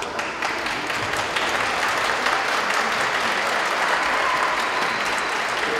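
Crowd applauding, building just after the start, fullest in the middle and easing slightly near the end.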